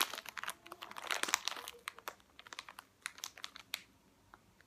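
Clear plastic packaging of a squishy toy crinkling as it is handled. The crackling is dense for the first two seconds, then thins to scattered clicks and stops about four seconds in.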